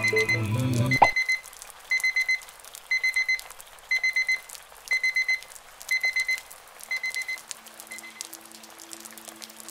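Digital alarm clock beeping: short runs of about four rapid high beeps, one run each second, growing fainter near the end. Music cuts off sharply about a second in, just before the beeping starts.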